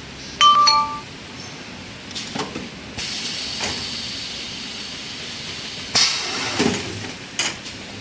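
Semi-automatic toilet paper packing and sealing machine at work: a short two-note beep, then knocks and hissing that starts suddenly about three seconds in and fades, and another knock with hissing about six seconds in, followed by clicks.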